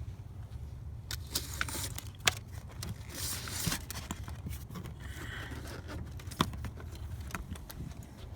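Hands working on the truck's wiring and trim: scraping and rustling with scattered small clicks, two sharp ones about two seconds in and near six seconds, over a steady low rumble.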